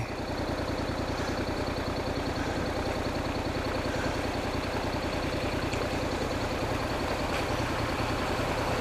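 Honda NC700X motorcycle's parallel-twin engine idling steadily.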